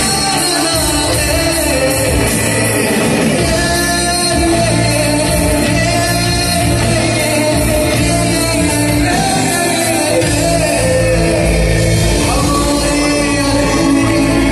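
Live band with a lead singer performing through a PA sound system, amplified music filling a large hall.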